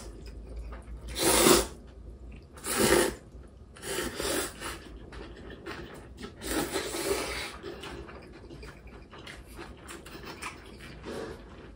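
A person slurping cold radish water-kimchi noodles in broth, several loud slurps a second or two apart, the one about seven seconds in the longest.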